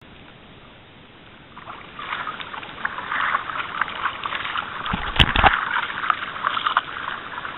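Kayak paddle blades dipping and splashing and water rushing past the hull, faint at first and louder from about two seconds in. A loud low thump comes about five seconds in.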